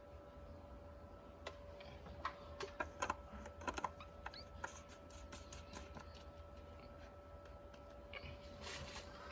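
Faint scattered clicks and light knocks, irregular and bunched around a few seconds in, over a steady faint electrical hum.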